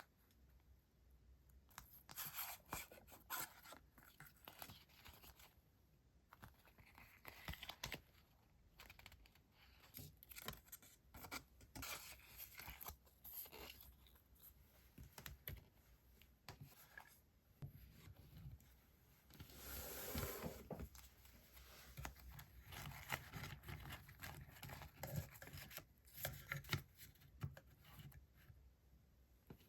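Paper stationery being handled: soft, crisp paper rustling and crinkling with light taps and clicks. A longer, fuller rustle comes about two-thirds of the way through.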